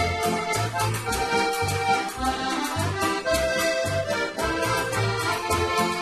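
A band of button accordions (button boxes) playing a lively traditional tune, reed chords held over a bass note that pulses about twice a second.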